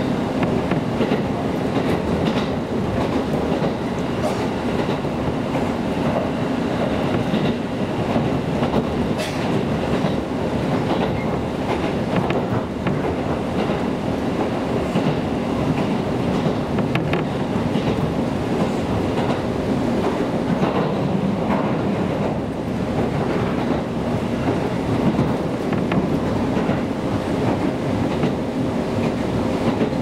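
Cabin noise inside a JR Kyushu KiHa 200 diesel railcar under way: a steady rumble of the running gear and wheels on the rails, with scattered sharp clicks.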